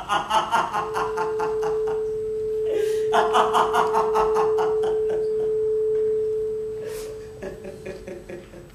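A boy laughing loudly in two long runs of rapid 'ha-ha' pulses over a steady, pure, single-pitched electronic tone. The tone comes in about a second in and fades away near the end.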